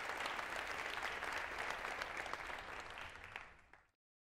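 Audience applauding, many hands clapping at once, steady at first and then fading out over the last second until it stops completely.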